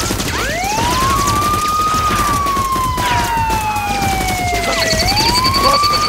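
Police siren wailing: its pitch rises, falls slowly for about three seconds, then rises again about five seconds in. Fainter gliding tones, a brief high beeping near the end and a busy clatter of other effects run underneath.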